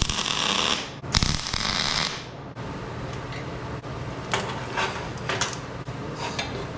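Two short tack welds from a wire-feed welder, each about a second of crackling arc, a little apart. Then a few light metallic clicks as locking clamp pliers are handled on the steel welding table.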